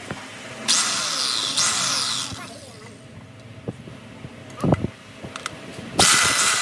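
Corded electric drill running in two short bursts, the first about a second and a half long near the start and the second starting near the end. A few sharp metal knocks come in between.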